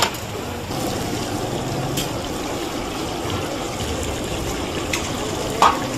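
Battered fish pieces deep-frying in a large wok of hot oil, a steady bubbling sizzle that comes in about a second in. A few sharp clinks sound over it, the loudest near the end.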